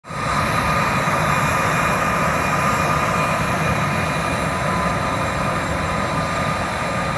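Delta CRJ-700's twin General Electric CF34 turbofan engines at taxi power, a steady jet whine of several high tones over a broad rumble.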